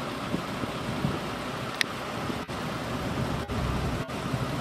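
Boeing 717's twin rear-mounted jet engines running as the airliner taxis: a steady, distant rumble and hiss. There is a single sharp tick a little under two seconds in.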